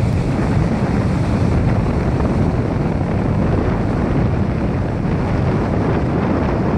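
Strong wind blowing on the microphone, a steady, loud low rumble, with surf beneath it.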